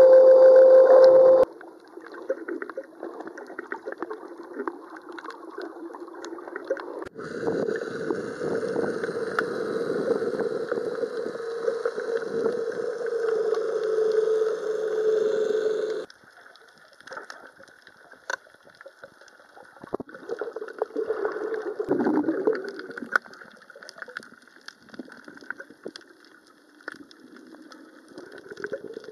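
Underwater recording. A handheld sea scooter's electric motor hums steadily up close and cuts off about a second and a half in. Muffled underwater rushing and gurgling follow, with scattered faint clicks, louder through the middle stretch.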